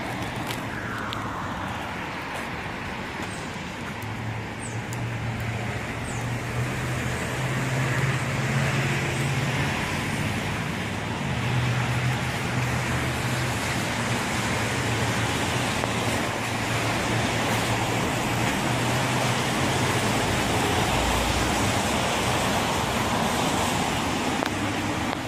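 Steady street traffic noise, with a low hum that comes and goes.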